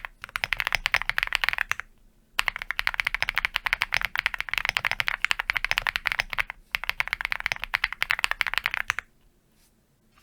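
Fast typing on a Mirror75 R2 mechanical keyboard, many keystrokes a second in three runs with short pauses between, stopping about nine seconds in.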